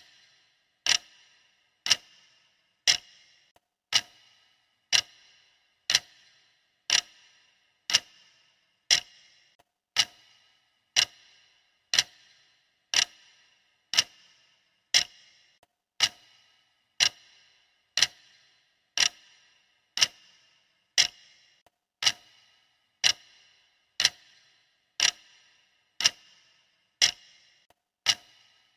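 Clock ticking steadily, one sharp tick each second, each with a brief ring.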